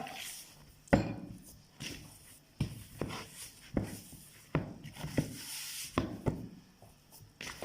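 Hands patting and pressing a ball of pâte brisée pastry dough on a work surface: a string of soft, irregular thuds.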